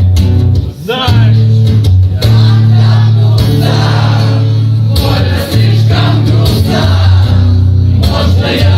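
Live acoustic rock song: a singing voice over acoustic guitar, with a heavy, sustained low bass.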